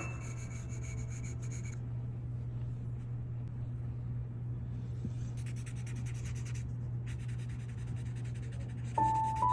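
Drawing pencil scratching across paper in quick shading strokes, heaviest in the second half, over a steady low hum.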